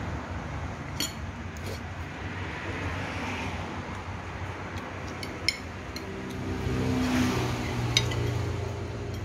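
Metal spoon and fork clinking and scraping on a plate, with sharp clinks about one, five and a half and eight seconds in. A motor vehicle's engine swells and fades as it passes, from about six seconds in.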